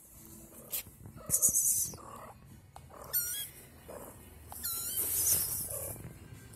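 A young kitten giving a few short, high mews that dip in pitch, one after another, with brief rustling between them.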